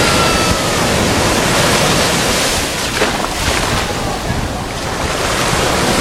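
Mediterranean waves breaking and washing up the sand at the water's edge: a continuous, loud rush of surf that swells and eases slightly as each wave comes in.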